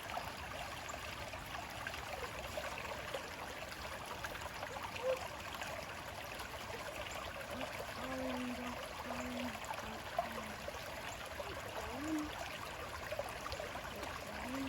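Shallow creek running over rocks with a steady, even rush of flowing water.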